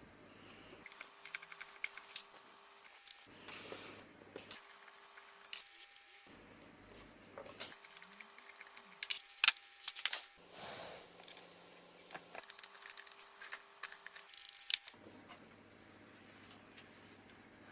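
Screwdriver work on small screws of a subwoofer amplifier's preamp board: scattered light clicks, ticks and scrapes of metal on metal and plastic, with a few sharper knocks and a short scrape partway through.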